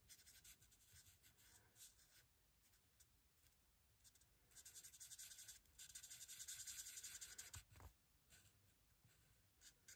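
Faint, quick scratching of a marker tip stroked back and forth over card stock as a white lightener is coloured over a stamped image, in two runs a little before and after the middle.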